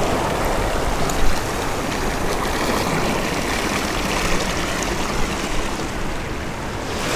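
Seawater washing and foaming over a rocky shore ledge: a steady rush of small surf.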